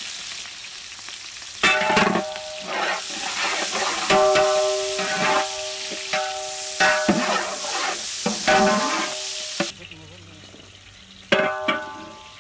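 Sliced onions sizzling loudly in hot oil in a large aluminium pot, with a metal ladle scraping and knocking against the pot so that it rings. The sizzle drops away sharply about ten seconds in, and there is one more ladle scrape near the end.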